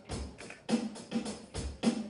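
A live rock band playing, led by a drum kit keeping a steady beat of kick drum and snare.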